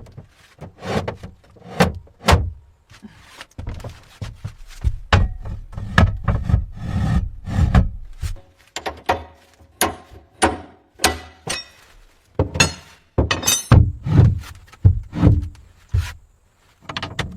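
Irregular knocks, thunks and clatter of hands-on fitting work, wooden parts and hardware being handled and set in place, as when hinged doors are hung.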